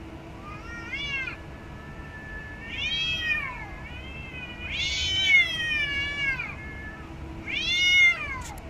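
Cats yowling at each other in a face-off: four drawn-out, wavering calls that rise and fall in pitch, the middle two lasting a second or two each and the last one loudest.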